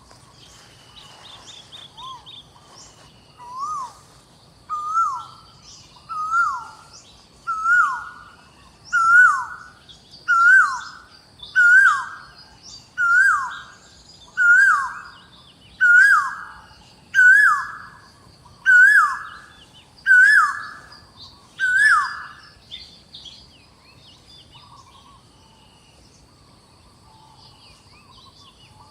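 A bird calling over and over, about fifteen notes roughly a second and a half apart, each rising then falling in pitch; the calls grow louder, then stop about three-quarters of the way through. A steady high hum of insects runs underneath.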